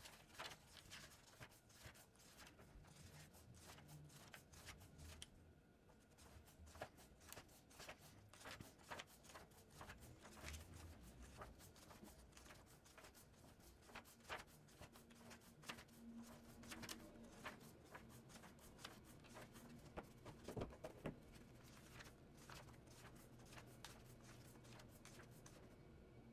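Faint, irregular rustling and soft clicks of paper notebook pages being turned and smoothed by hand.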